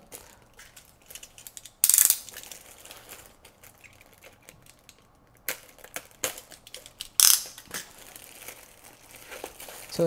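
Clear plastic wrap around a small audio interface crinkling as it is handled and cut open, with scattered small clicks. Two loud, short rustles of the plastic come about two seconds in and about seven seconds in.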